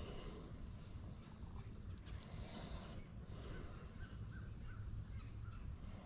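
Faint outdoor ambience: a steady, evenly pulsing chorus of insects chirring, over a low rumble.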